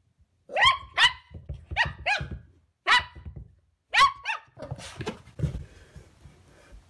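Miniature pinscher barking: about seven short, sharp barks, mostly in quick pairs, in the first four and a half seconds. It is demand barking for food.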